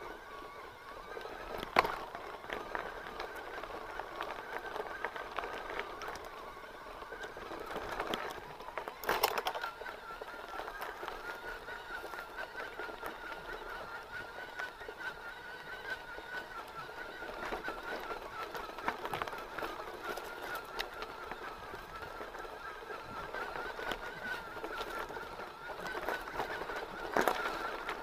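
Mountain bike rolling along a dirt trail: a steady, slightly wavering high buzz from the bike runs throughout, over rattling from the rough ground. Sharp knocks as the bike hits bumps come about two seconds in, around nine seconds and near the end.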